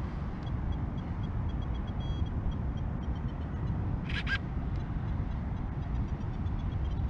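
Steady low outdoor rumble, with faint rapid high pips through much of it and a short double chirp about four seconds in.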